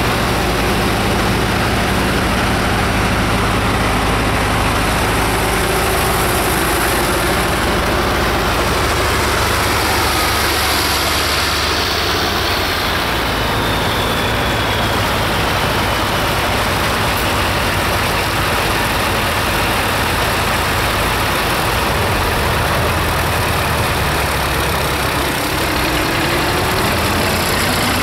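Several antique farm tractor engines running as the tractors drive past one after another. The engine notes shift as each passes, and near the end one rises in pitch as a tractor pulls by close.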